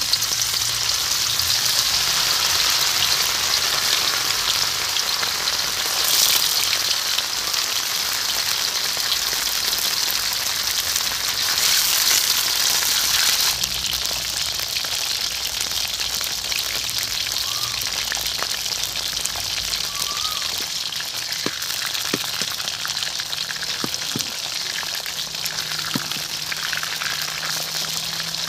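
Slices of smoked beef tapa frying in hot oil in a large steel wok, a dense steady sizzle with scattered pops. The sizzle eases a little about halfway through.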